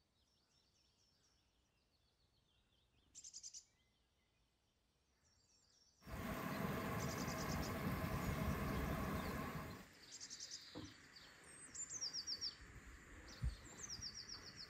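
Songbirds chirping in short, repeated high trills. From about six seconds in, for about four seconds, the louder steady hiss and bubbling of water boiling in a pot of walnuts.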